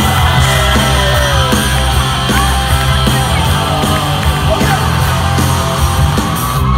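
Live rock band playing loudly, with heavy bass and drums coming in at the start.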